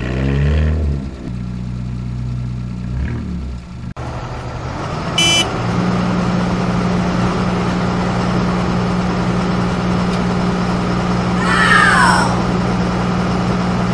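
Truck engine sound effect laid over the toy trucks: an engine revving with rising and falling pitch, then after an abrupt cut about four seconds in, a steady engine hum. A brief high beep about five seconds in and a short wavering high whine near the end.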